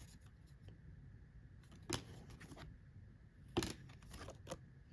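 Faint handling of hockey trading cards: a few short, sharp clicks as cards are flicked and shuffled in hand, the clearest about two seconds in and again past halfway.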